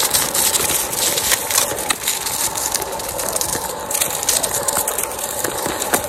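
Onewheel's fat tyre rolling fast over dry leaves and twigs, a continuous crunching and crackling. A steady whine from the board's hub motor runs under it.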